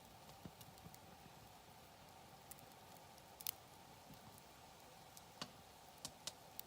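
Wood campfire crackling faintly, with scattered sharp pops and snaps; the loudest pop comes about halfway through and a few more come close together near the end.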